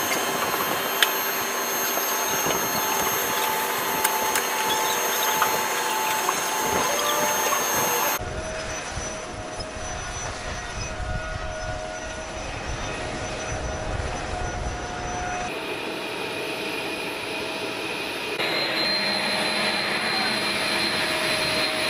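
Steady jet-engine and ground-equipment noise on an airfield apron: a hiss with high whining tones, turning into a deeper rumble about 8 seconds in, then back to a higher whine about halfway through, changing abruptly at each cut.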